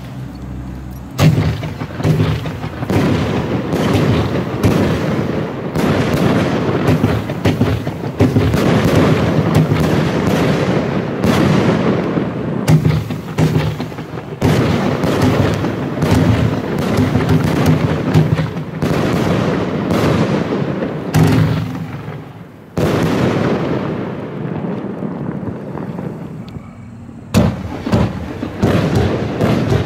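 Funke Weißblinker-Dahlien Z2 25-shot firework battery firing: a rapid, continuous series of shots and bursts starting about a second in. The shots ease off for a few seconds near the end, then pick up again.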